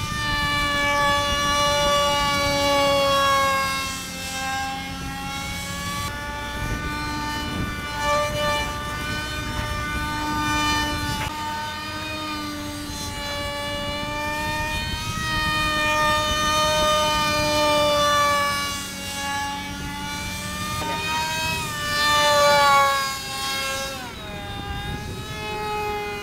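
Electric motor of a radio-controlled model F-22 jet whining in flight, a steady pitched whine that slowly rises and falls several times and is loudest about 22 seconds in.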